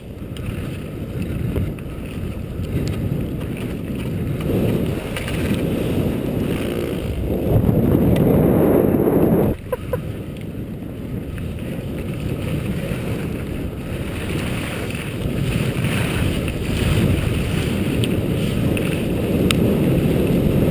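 Wind rushing over a GoPro's microphone as a skier travels downhill, with skis running over slushy snow. It swells to its loudest just before the halfway point, drops off suddenly, then builds again.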